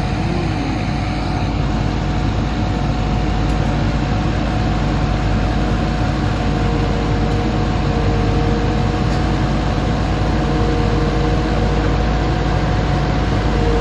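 Hitachi Zaxis hydraulic excavator's diesel engine running steadily at high throttle, a loud buzzing drone with a steady whine over it. A second, lower whine comes and goes in the second half.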